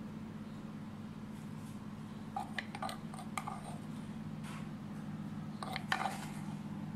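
A few light clicks and taps in two short clusters, about two and a half and six seconds in, over a steady low hum.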